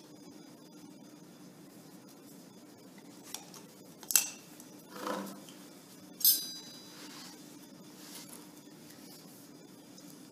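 Light clinks and taps of a metal spoon and clear plastic cups being handled and set down on a carpeted floor, with two sharper clinks about four and six seconds in, the second ringing briefly.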